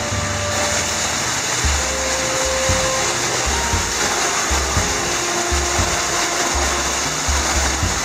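Steady rushing of water in a wet cave passage, loud and even, with irregular low rumbles over it.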